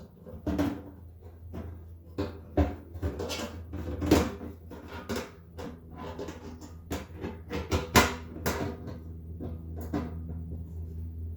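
Hand work on the fuel pump assembly: irregular clicks and knocks of metal and plastic parts being handled and fitted, the loudest knocks about four and eight seconds in, over a steady low hum.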